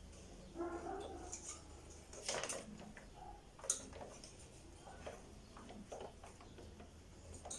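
Faint, scattered clicks and light ticks from handling the broken heating-element wire and small parts of an opened hair dryer while splicing the wire ends back together, with two sharper clicks a few seconds apart.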